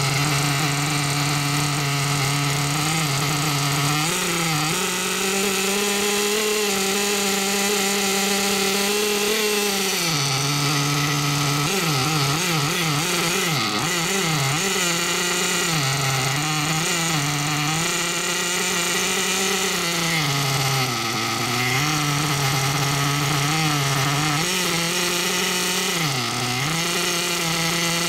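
BG Engines Fusion X3 EX nitro engine in a 1/8 buggy running during break-in. It holds a steady fast-idle note, steps up in speed about four seconds in, then dips and wavers several times later on.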